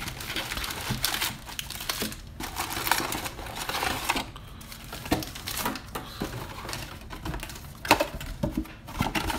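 Wrapped trading-card packs crinkling and rustling as they are pulled out of a cardboard hobby box and handled, with irregular crackles and a few sharp knocks near the end.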